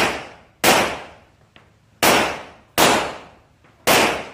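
Five pistol shots from a Rock Island Armory Tac Ultra FS HC, fired at irregular spacing from about half a second to a second and a half apart. Each shot echoes and dies away in the indoor range.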